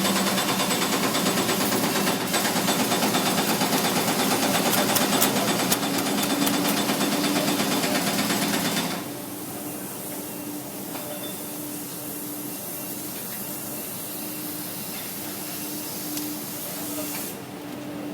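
An engine running steadily with a fast, even clatter. About nine seconds in it becomes quieter and duller.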